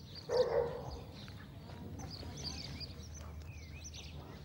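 Dogs playing rough-and-tumble, with one short dog vocalisation, a growl or bark, about half a second in. Small birds chirp faintly behind.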